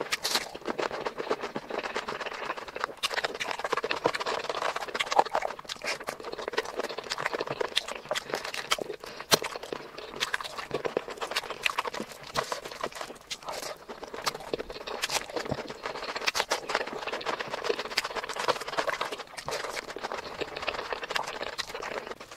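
A person eating close to the microphone: wet chewing, crunching and mouth clicks in quick irregular succession, with fingers mixing rice and curry.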